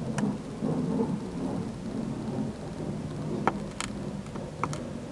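Low rumbling noise with several sharp clicks in the second half, as a metal pen-like tool is set against the windshield glass at the drill hole.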